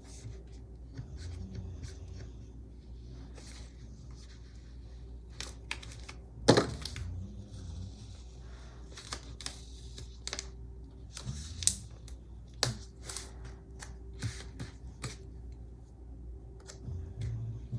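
Sticker sheets and paper being handled while decorating a planner page: scattered light taps, clicks and short rustles, with one sharper knock about six and a half seconds in, over a steady low hum.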